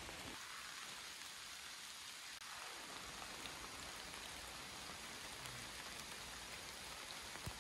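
Steady rain falling in woodland: an even patter of drops.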